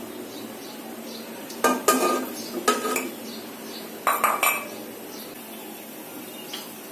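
Kitchenware clinking: three short bursts of knocks, each with a brief ring, about a second apart, as a cup is handled against a non-stick kadai while mustard oil is poured in.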